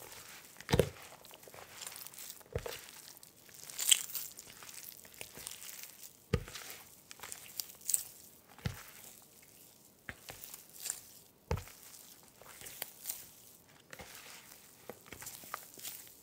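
Hands squeezing and working crumbly pastry dough of flour and margarine in a plastic bowl: irregular soft crunching and crumbling, with a few dull knocks every couple of seconds.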